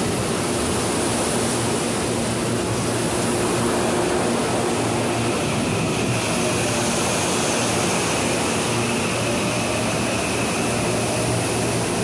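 CPTM electric passenger train running alongside a station platform: a steady rumble and rush of noise, with a faint high motor whine coming in about halfway through.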